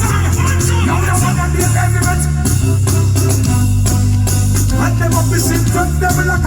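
Live reggae band music with a heavy, sustained bass line and a steady beat.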